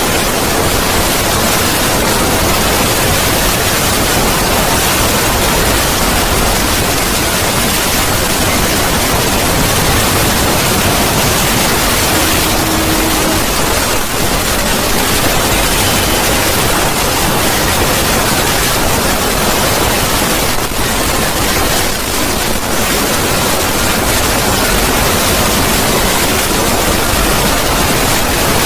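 Loud, steady static hiss, like white noise, spread evenly across low and high pitches with no tone or rhythm.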